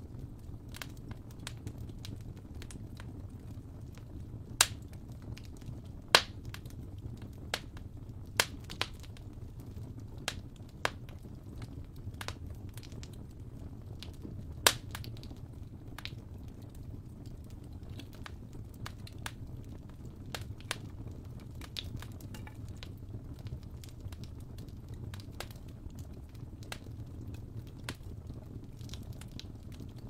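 Fire crackling in a fireplace: irregular sharp pops and snaps, a handful of them much louder, over a steady low rumble.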